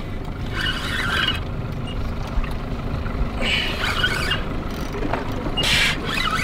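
Penn Spinfisher 6500 spinning reel under load from a hooked fish, sounding in three short squealing bursts over a steady low background noise.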